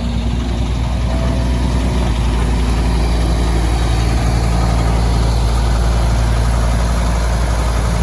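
Diesel engine of a Jining W35 3.5-tonne zero-tail mini excavator running steadily at an even speed.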